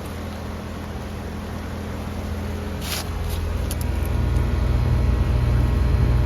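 Goodman R32 heat pump outdoor unit running in heat mode: a steady low hum of its scroll compressor and fan, growing louder about four seconds in. A brief sharp noise about three seconds in.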